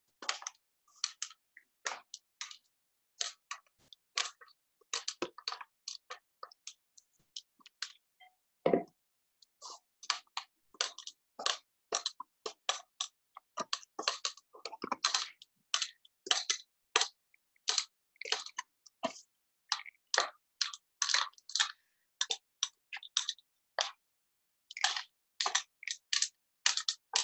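Irregular crisp crackles and clicks of crushed-pretzel crust, sparse at first and growing dense from about ten seconds in.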